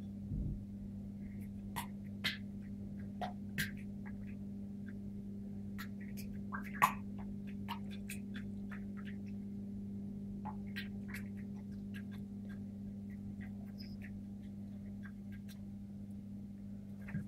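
A kitten pawing and dipping its head into a ceramic water bowl: scattered small splashes and drips, the loudest about seven seconds in. A steady low hum runs underneath.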